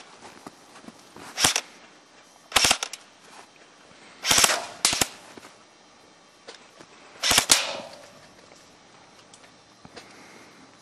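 Airsoft rifle firing five short bursts of a few rapid shots each, sharp clicky reports spaced one to three seconds apart, the last about seven seconds in.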